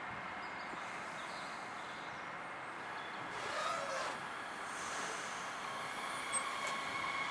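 A DB Class 422 S-Bahn electric multiple unit standing at the platform, its equipment giving a steady hum. About six seconds in, a steady whine sets in.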